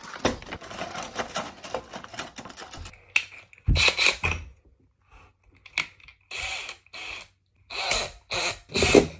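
Clicks and rattles of a DeWalt cordless drill being handled. From about three seconds in come a run of short bursts of the drill's motor spinning the chuck as a plastic fork is fitted into it.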